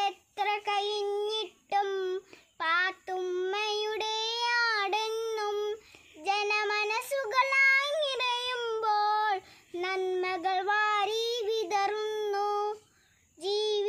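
A young girl singing a Malayalam poem unaccompanied, in held, drawn-out notes, phrase after phrase with short breaths between.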